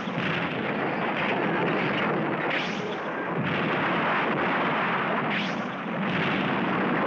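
Cartoon explosion sound effect: one long, continuous blast of rushing, rumbling noise that swells and eases a few times.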